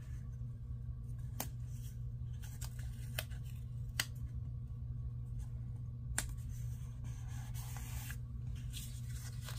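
A paper sticker being peeled from its sheet and pressed onto a journal page: soft paper rustles and a few small clicks, over a steady low hum.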